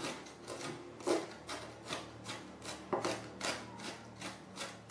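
Chef's knife chopping sliced leek on a wooden cutting board: a steady run of quick chops, about three a second, each a short knock of the blade through the leek onto the wood.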